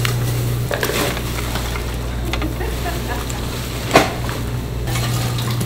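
Fish and squid sizzling on a charcoal grill's wire grate over a steady low hum, with scattered light clicks and clatters as stone weight slabs and fish are moved about on the grate. One sharp knock about four seconds in.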